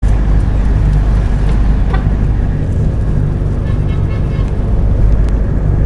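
Inside a city bus: the steady low rumble of the bus engine, with faint voices in the background.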